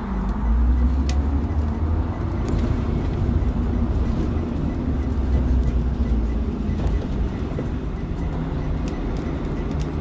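School bus engine running as the bus drives off and cruises, heard from inside the cab as a steady deep rumble with road noise. It is strongest through the first several seconds and eases somewhat near the end.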